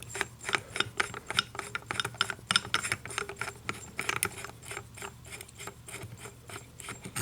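Rapid small metal clicks and rattles of a Major LPT255 lever removal tool being loosened and taken apart from a Schlage door lever, growing fainter toward the end.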